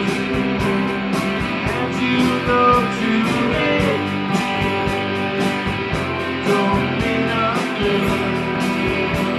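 Live rock band playing an instrumental passage: guitars over a steady drum beat, without vocals.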